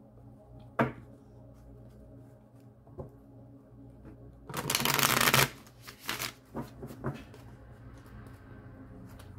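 A deck of tarot cards being shuffled by hand: a single tap, then a dense rush of riffling cards lasting about a second midway, followed by a few light taps as the deck is squared.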